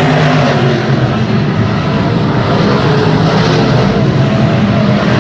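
Stock car engine running hard at racing speed, loud and steady with a slightly wavering pitch.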